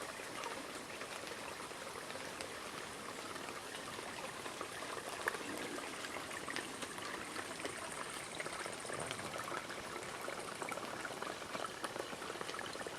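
Small mountain spring trickling out of a hillside: a steady light splashing and gurgling of running water, dotted with many small drips.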